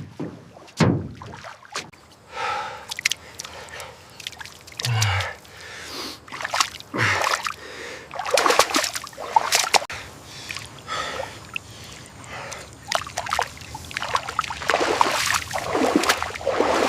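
Water splashing and sloshing in irregular strokes as a small boat is paddled through floodwater, with gasping breaths.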